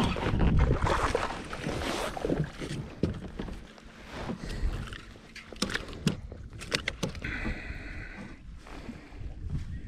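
Water splashing as a hooked bass is pulled to the kayak and lifted aboard. Then comes a quick series of sharp knocks and clatter as the fish is handled on the kayak's deck.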